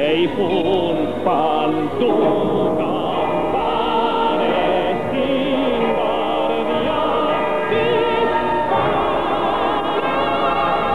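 Film-score music: a choir singing sustained, wavering notes with vibrato over an orchestra.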